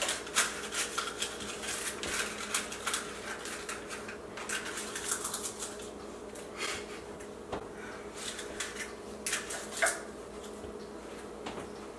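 Irregular rustling, crinkling and light clicking of paper and cardboard baking packaging and cupcake liners being handled, over a faint steady hum.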